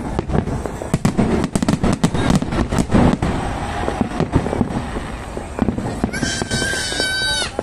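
Fireworks going off: a dense run of rapid bangs and crackles, thickest in the first half, then a steady high whistle lasting over a second near the end.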